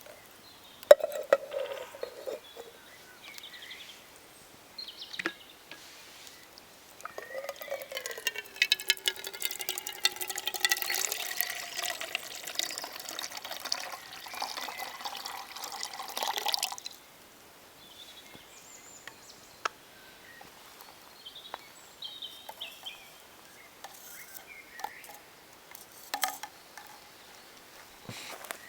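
Liquid poured into a cup or vessel for about ten seconds, stopping abruptly, with small scattered clicks and knocks before and after.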